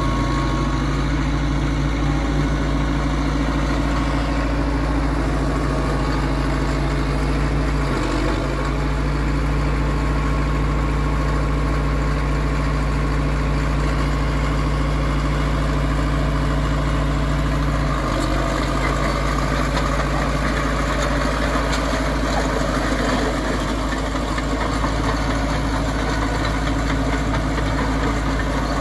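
Caterpillar D4E crawler dozer's four-cylinder diesel engine running steadily as the dozer is driven slowly on its tracks. The engine note shifts slightly about eight seconds in and again about eighteen seconds in.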